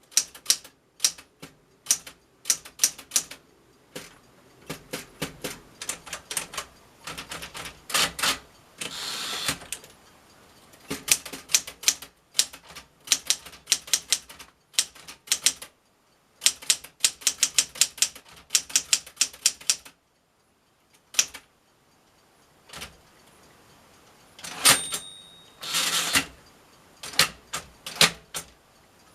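Smith-Corona Galaxie Twelve manual portable typewriter being typed on: typebars snap against the platen in quick runs of keystrokes with short pauses between. A few longer rasping strokes come in between, and about 25 seconds in there is a brief ringing tone.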